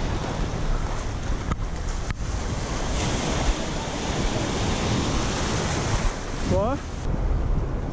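Ocean surf washing in shallow water at the shoreline, a small wave breaking and foam rushing around, with wind buffeting the microphone. Near the end comes a short rising call.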